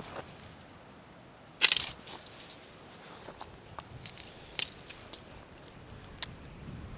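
Small fishing-rod bell jingling in two bursts, about one and a half seconds in and again around four seconds in, as a fish bites at the bait.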